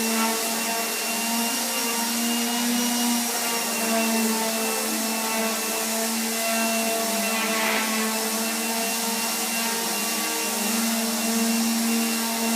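Electric power sander running steadily on wood: a continuous motor hum with a dense hiss, the hum's pitch wavering slightly.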